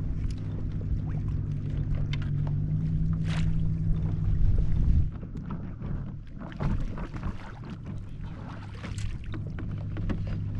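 Kayak's electric trolling motor running with a steady low hum that cuts off about five seconds in. Scattered knocks and clicks on the kayak follow, and the hum starts again near the end.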